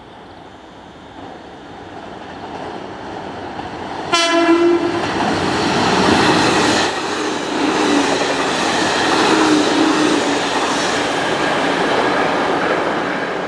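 JR Kyushu 813 series electric commuter train approaching and running past close by. It gives a short horn blast about four seconds in, then the loud running noise of wheels on rail carries on as the cars go by.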